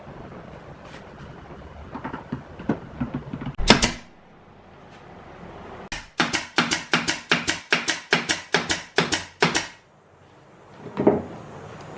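A pneumatic brad nailer fires a fast run of nails into plywood panel edges, about four shots a second for nearly four seconds. Before the run come a few lighter knocks and one sharp shot, and a single shot follows near the end.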